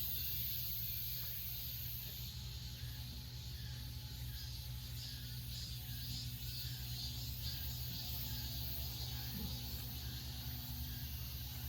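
Steady low background hum with faint, short high chirps repeating over it, and no swing sound yet.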